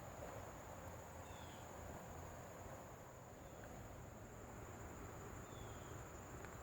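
Faint outdoor background dominated by a steady high-pitched drone of insects, with a low rumble underneath and a few faint short falling chirps.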